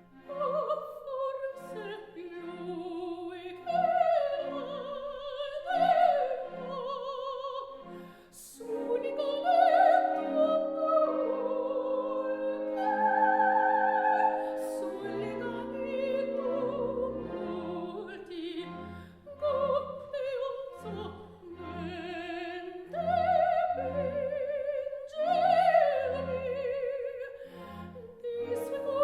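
Background classical music in operatic style: a melody sung or played with a wavering vibrato over an accompaniment with a steady bass.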